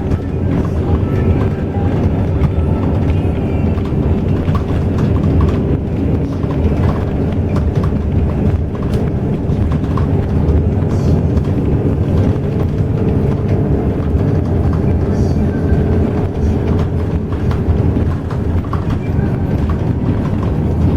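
Steady engine and road rumble of an intercity highway bus, heard from inside the cabin while it drives, with a faint steady whine and small rattles over the low drone.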